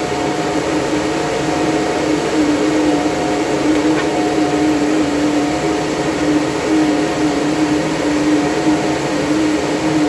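Cooling fans of running Antminer cryptocurrency mining machines: a loud, steady whir with a droning tone running through it.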